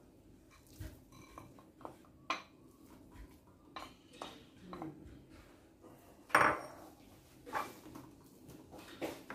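Wooden spoon scraping and knocking against a plate and the rim of a kitchen machine's stainless steel jug while minced meat is pushed in and stirred: scattered clinks and knocks, the loudest about six and a half seconds in.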